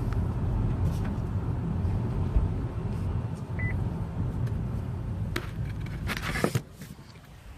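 2017 Buick Cascada convertible driving with its top down: a steady low rumble of road and wind noise. A brief burst of noise comes near the end, and then the level drops off sharply.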